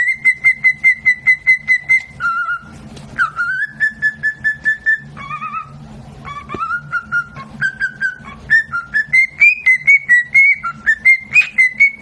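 A parrot whistling fast trains of short, repeated notes, about six a second, that switch pitch and pattern every second or two, with a brief held tone and upward glides between them.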